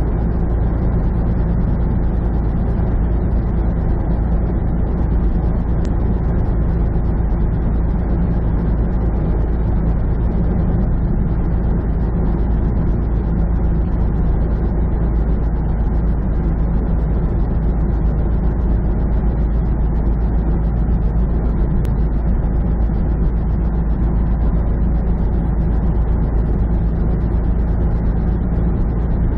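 Steady low drone of a semi truck's diesel engine and road noise, heard from inside the cab while cruising on the highway.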